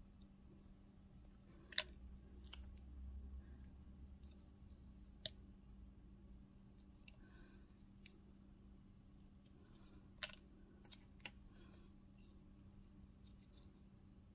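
Hands handling a small paper tab and double-sided score tape: scattered light paper rustles and a few sharp little clicks, over a faint steady hum.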